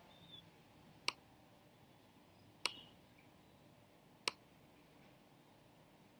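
Three sharp computer clicks, about one and a half seconds apart, over quiet room tone.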